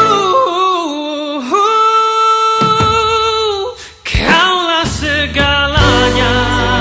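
Malay love song with a singer holding long notes over accompaniment, the voice wavering with vibrato; the sound drops out briefly about four seconds in, then the singing resumes.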